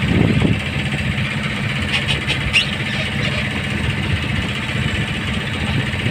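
Fishing boat's engine running with a steady, even hum, with a few light clicks about two seconds in.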